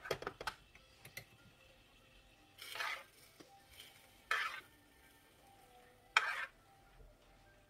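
A metal spoon scraping against a frying pan three times, a second or two apart, as minced-meat filling is scooped up and packed into bell peppers, with a few light clinks at the start.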